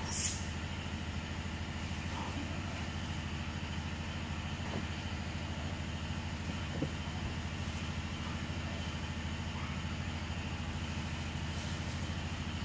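A steady low drone like a running motor, with a faint high buzz above it. A short sharp click comes just after the start.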